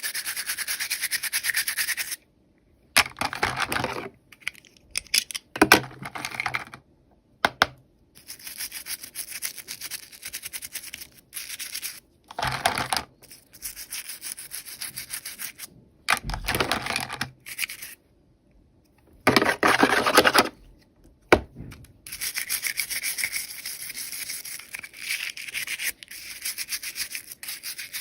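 Toy packaging being unwrapped and handled, a rapid scratchy rasping in a series of bursts of a second to several seconds, broken by sudden silences.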